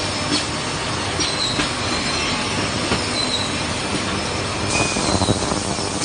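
Steady industrial machinery noise with brief high metallic squeals coming and going, and a few clinks of aluminium parts being shifted in a steel tray.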